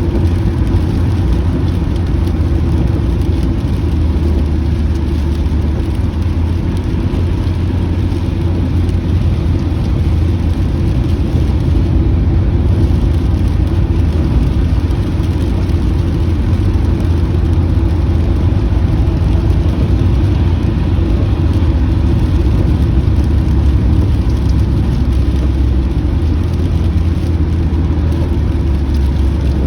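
Steady low rumble of a car being driven, heard from inside the cabin: engine and road drone with an even hiss of tyre noise above it.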